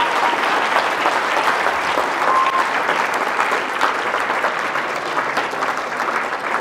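Audience applauding, many people clapping at once, easing slightly near the end.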